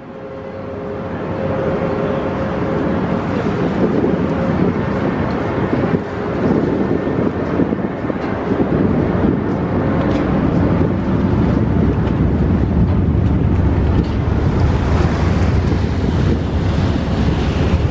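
Wind buffeting the microphone over the steady low running of a ferry's engines and water churned by its propellers as it manoeuvres alongside the quay to berth.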